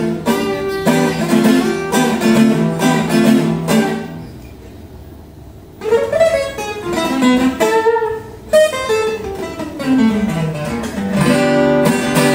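Yamaha F310 steel-string acoustic guitar with light-gauge strings, played with picked chords and single-note lines. About four seconds in, the notes ring out and fade for nearly two seconds, then the playing resumes with a falling bass run and full chords near the end.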